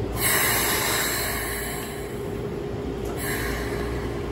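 Compressed-air hiss from a stopped Keikyu train: one long release of about two seconds, then a short second puff about three seconds in, over a steady hum from the standing train.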